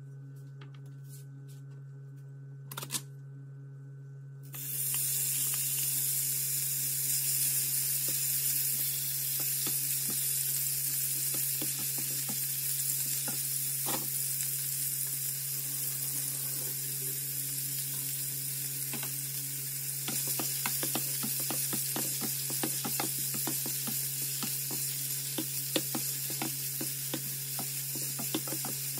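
Cubed marinated chicken sizzling in hot oil in a nonstick frying pan. The sizzle starts suddenly about four seconds in, with a wooden spatula clicking and scraping against the pan as the chicken is stirred. A steady low hum runs underneath.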